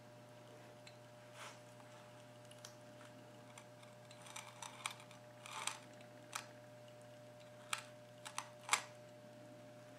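Faint, irregular small clicks and taps, about a dozen, as molten lead is let out of an electric bottom-pour lead pot into a clay dish. The loudest clicks come near the end, over a steady low electrical hum.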